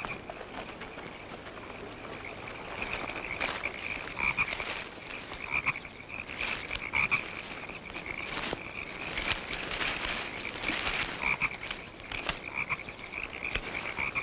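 Night swamp chorus of frogs croaking: a steady high trill underneath, with repeated short croaks breaking in through the middle.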